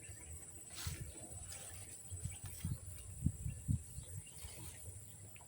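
Steady high-pitched drone of an insect chorus, with several soft low thumps and a brief rustle about a second in.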